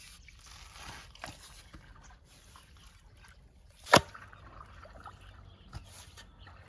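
Faint water trickling and sloshing, with a single sharp click about four seconds in.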